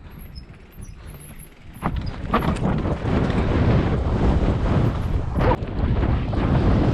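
Mountain bike rolling down a dirt trail: wind rushing over the microphone and tyre and frame rattle, which swell about two seconds in as the bike picks up speed, with scattered sharp knocks from bumps.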